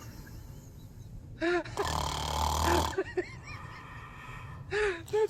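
A person snoring, with one long loud snore about two seconds in and short high-pitched squeaky sounds before and after it.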